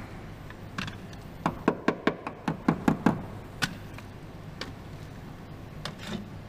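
Small hammer tapping a brake hose fitting into place on its bracket at the wheel: a quick run of light taps, then a few single taps spaced out.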